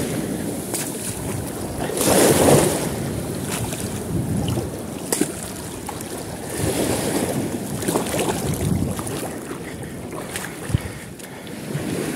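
Shallow water swishing and splashing at the shoreline as a hooked fish is pulled through the shallows, with wind buffeting the microphone. The splashing swells about two seconds in and again around seven to nine seconds.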